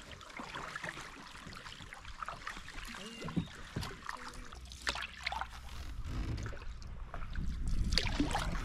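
Canoe paddle strokes pulling through calm river water, with water trickling and dripping off the blade and lapping along the hull. A low wind rumble on the microphone builds in the second half.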